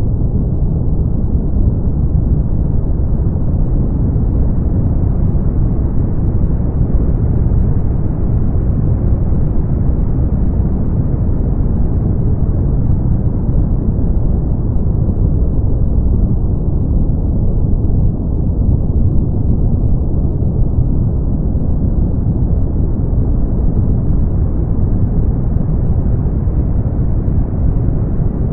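Brown noise: a steady, deep hiss, strongest in the bass with almost no treble. Its brightness drifts slowly up and down over several seconds while the loudness stays even.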